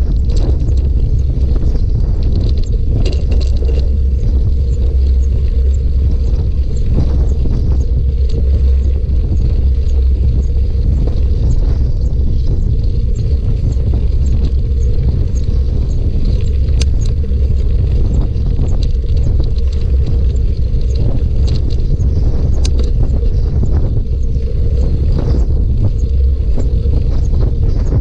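Steady low rumble of wind buffeting the microphone on a moving bicycle, with tyre noise from rolling over a rough trail and scattered clicks and rattles from the bike.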